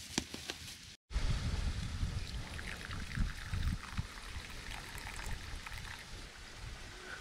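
Water trickling and running, an even hiss over a low uneven rumble. A couple of sharp metallic clinks come in the first second, just before a sudden break.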